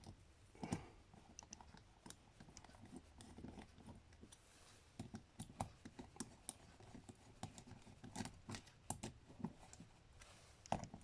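Faint, scattered small metal clicks and light scraping as Phillips screws with lock washers are fitted and turned into a Mikuni carburetor body with a screwdriver.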